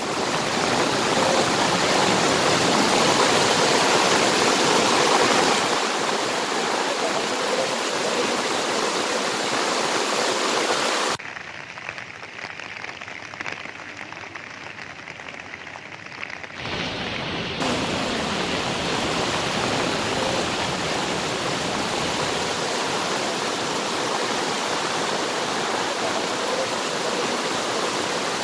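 Rushing floodwater: a steady, dense rush of water noise. It drops sharply about eleven seconds in and comes back about six seconds later.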